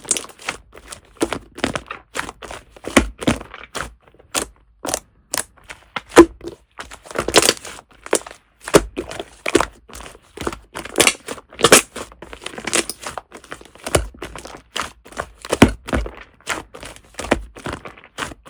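Fluffy shaving-foam slime being squeezed and pressed by hand, making an irregular run of sticky clicks and small crackling air pops, about two to three a second.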